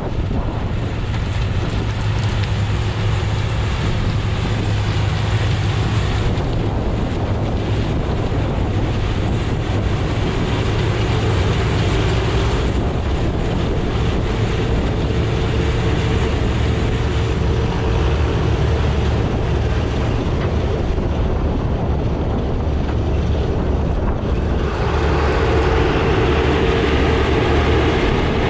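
Heavy diesel machinery running steadily with a low hum, its tone shifting a few times and growing brighter and slightly louder near the end.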